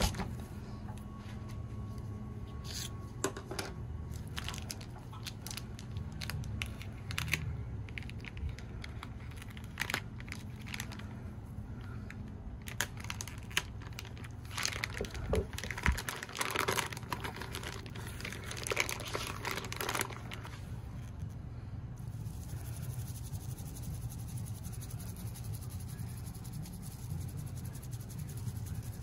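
Plastic vacuum-seal bag around a raw pork butt crinkling and tearing as gloved hands handle it and cut it open with a knife. The crinkling is busiest around the middle and dies away about three quarters of the way through.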